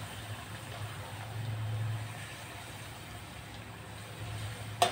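A puri deep-frying in hot oil in a wok, pressed down with a slotted steel spoon to make it puff, over a steady low hum. One sharp metal clink of the spoon against the wok comes near the end.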